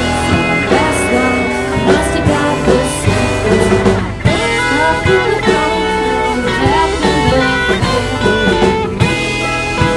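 A live indie rock band playing: electric guitars and bass guitar over a steady beat, with a lead line that bends and slides in pitch.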